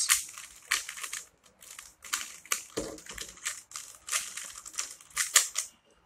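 Rubik's cube layers being twisted by hand, an irregular run of sharp plastic clicks and clacks, about a dozen, as the right-hand algorithm (R, U, R prime, U prime) is turned out.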